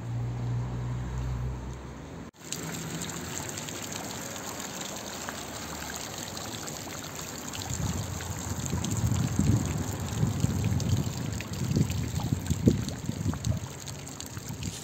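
Fountain water spraying and splashing into its stone basin, growing louder about halfway through. A low hum at the start cuts off about two seconds in.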